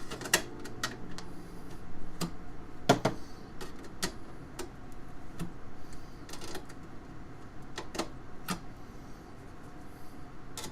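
Irregular sharp clicks and taps, roughly one a second with the loudest about three seconds in, from hand tools working at the burrs around a cut-out in a PC case panel.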